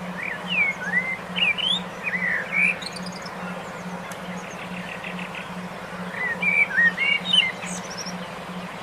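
A songbird singing two quick bouts of short whistled notes that slide up and down, over a steady hiss and a low hum that pulses about three times a second.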